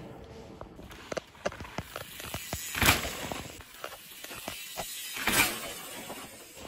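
Downhill mountain bike clattering and rattling over roots and rocks, with many short knocks and two brief louder rushes of noise, about three seconds in and again past five seconds.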